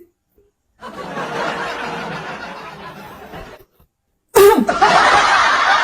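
Laughter in two stretches: a few seconds of moderate laughter starting about a second in, then, after a brief silence, louder laughter breaking in suddenly near the end.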